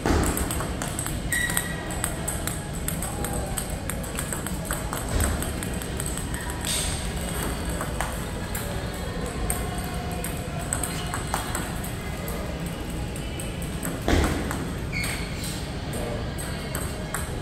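Table tennis ball struck by rubber-faced paddles and bouncing on the table in a forehand practice rally: a quick, irregular run of light pings and taps, mixed with more balls clicking from nearby tables, and a few stronger knocks.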